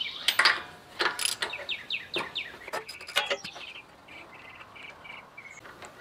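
Ratchet wrench clicking in a run of short strokes as a spark plug is unscrewed, with birds chirping in the background.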